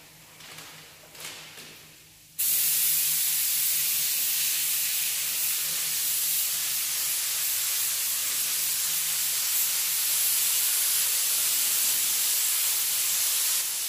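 Paint spray gun hissing steadily as paint is sprayed on, cutting in suddenly about two seconds in and trailing off at the end.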